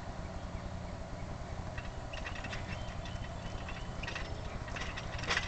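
Quiet outdoor ambience: a steady low rumble with a few faint, short high-pitched tones and light ticks in the middle.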